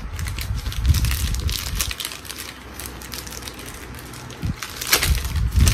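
Snack wrapper crinkling and crackling as fingers pick at it and open it, with a few dull low thumps from handling.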